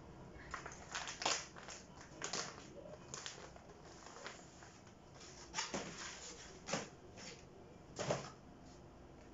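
Plastic packaging crinkling and rustling in short, irregular bursts as a new garment is taken out of its wrapper and unfolded.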